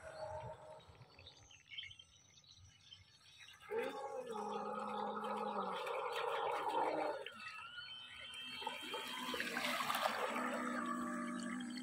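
Radio-controlled model speedboat's motor running on the water, faint at first and louder from about four seconds in. Its pitch holds steady for a few seconds, then slides up and down as the boat turns, with water churning as the boat passes close near the end.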